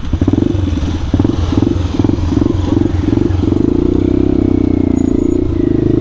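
Motorcycle engine running, its note pulsing unevenly with the throttle for the first three seconds and then holding steady from about three and a half seconds in.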